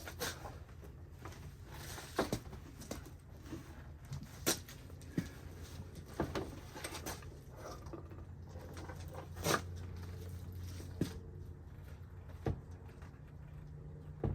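Scattered knocks, clicks and clanks of hands and tools working on a pickup truck door and its hinges, over a steady low hum.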